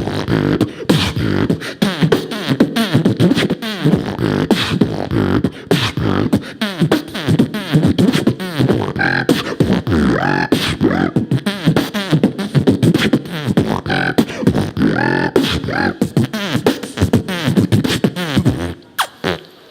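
Human beatboxing: a dense, fast stream of mouth-made drum hits and clicks mixed with short sung, sliding vocal tones, which stops abruptly about a second before the end.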